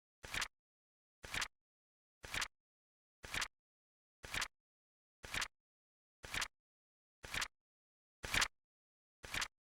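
Flip-clock timer's flip sound effect, a short sharp click-flap about once a second, ten times in a row, with dead silence between them.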